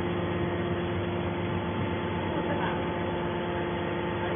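Steady machine hum with several held tones, like a motor-driven baler running, and faint voices in the background.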